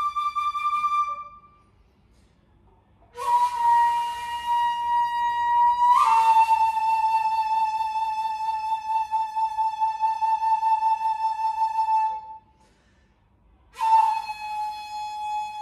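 Solo shakuhachi, an end-blown bamboo flute, playing Kinko-ryū honkyoku: long held notes, each starting with a breathy attack, broken by two silent pauses of about two seconds. The middle note is held for about nine seconds and steps slightly lower with a swell about six seconds in.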